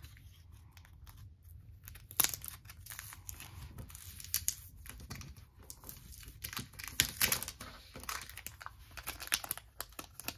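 Plastic packaging crinkling and tearing in the hands as a photocard is taken out of its plastic sleeve: scattered sharp crackles, the loudest about two seconds in and about seven seconds in.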